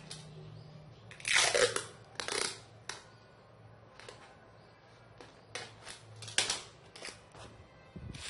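Parcel packing: a series of short rustles of wrapping material being handled, the loudest two about a second and two seconds in.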